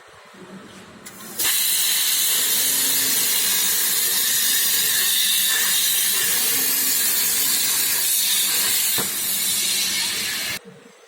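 CNC plasma cutter's torch hissing steadily as it cuts. The hiss starts abruptly about a second in and cuts off sharply near the end.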